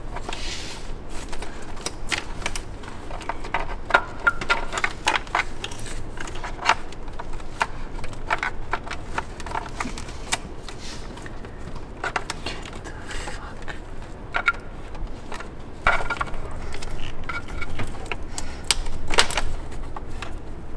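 Scattered clicks, taps and light rattles of a sensor wire and plastic engine-bay parts being handled, as a new camshaft position sensor's wire is fed back through a BMW M54 engine bay.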